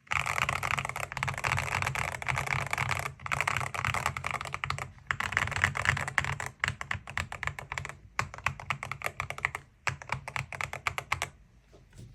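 Typing on a mechanical keyboard fitted with HG White non-clicky switches: quick runs of keystrokes with brief pauses, then slower, separate key presses that stop near the end.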